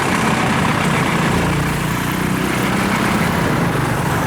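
Engine of a heavy farm machine running steadily. Its low hum grows stronger about a second and a half in.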